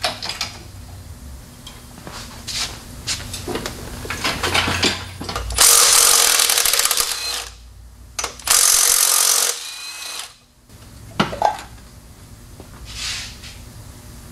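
A power tool runs in two loud bursts of about two seconds and a second and a half, around the middle, loosening fasteners in a car's engine bay. Light clicks and clanks of tools and metal parts come before and after.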